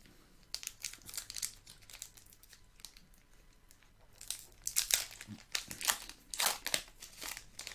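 Foil wrapper of a Pokémon booster pack crinkling and tearing as it is opened by hand. Scattered crackles at first, turning into dense, louder crinkling for the last few seconds.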